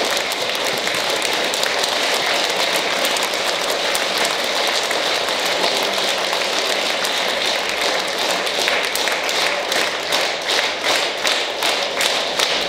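Audience applauding in a hall, a dense even clatter of many hands; individual claps stand out more toward the end.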